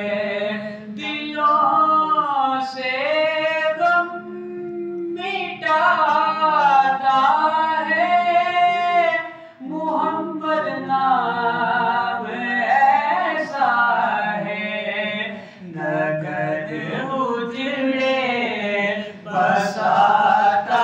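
A man sings an Urdu naat unaccompanied into a hand microphone. He sings in long melodic phrases with held, wavering notes and brief pauses for breath between them.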